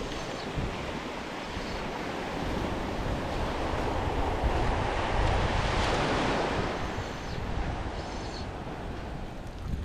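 Ocean surf breaking and washing up the beach, building to a peak about halfway through and then easing off, with wind rumbling on the microphone.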